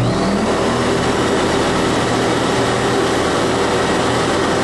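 Pex 500 portable carpet extractor's vacuum motors switching on and spinning up with a brief rising whine, then running with a steady loud rush over the hum of the already-running high-pressure pump.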